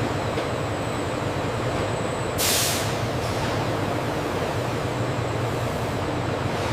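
Steady running noise of chocolate-factory machinery, with a short hiss of released air about two and a half seconds in.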